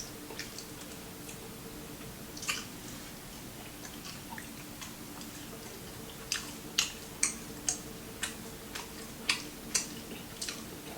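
A person chewing crunchy fried food close to the microphone, with scattered crunches at first and then a run of sharp crunches about two a second from about halfway in. A faint steady hum lies underneath.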